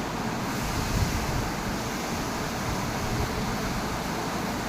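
Chicago Pneumatic air compressor running with a steady, even noise.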